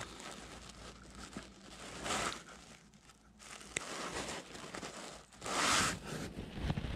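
Clothing rustling against the camera's microphone: a few brief crinkling brushes, the loudest about five and a half seconds in, with a small click in between.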